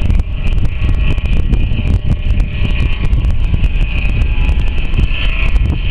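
Heavy wind buffeting the microphone, a loud, unsteady rumble with crackling, over a steady higher hiss.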